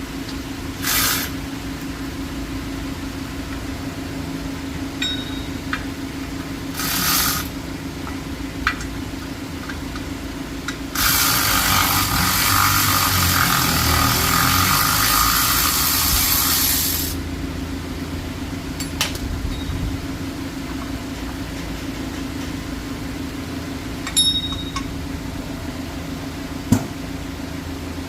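Hissing spray: two short bursts, then one about six seconds long, over a steady hum, with a few sharp metal clinks in between.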